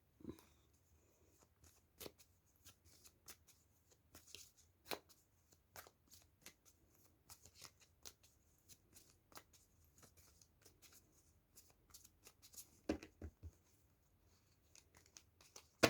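Tarot cards being shuffled and handled: faint, irregular clicks and flicks of card edges, with a few louder snaps about five and thirteen seconds in.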